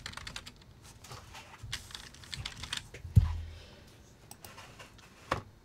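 Typing on a computer keyboard, a quick run of keystrokes, then a single heavier thump about three seconds in and a few more scattered clicks near the end.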